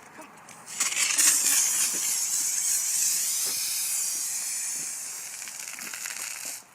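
Shaken 2-liter bottle of Coke spraying out its fizz with a loud, steady hiss that starts about a second in, slowly weakens, and stops suddenly near the end: the carbonation escaping under pressure.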